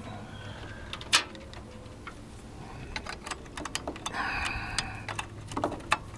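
Handling clatter on a workbench: scattered small clicks and knocks of objects and cables being moved about, the sharpest knock about a second in and a quick run of clicks in the middle.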